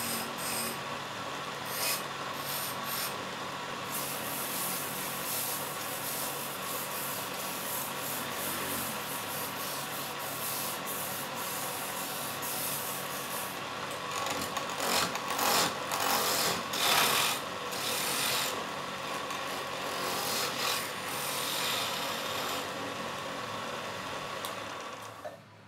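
Wood lathe running with a steady hum while a hand-held turning chisel cuts a spinning wooden spindle, giving a continuous scraping hiss. The cutting comes in louder, uneven strokes a little past the middle. Near the end the sound drops away as the lathe is switched off.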